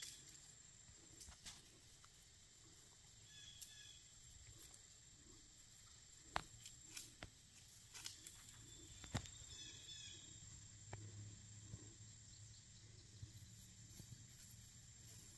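Quiet woodland ambience with faint bird calls, short chirps heard twice, about three seconds in and again about ten seconds in. A couple of faint sharp clicks come in the middle.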